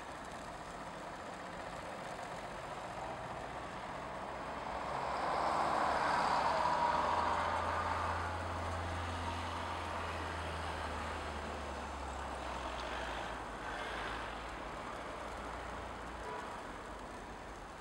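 Street traffic: vehicles passing, loudest about six to seven seconds in, with a low engine drone from a heavy vehicle that lingers until near the end.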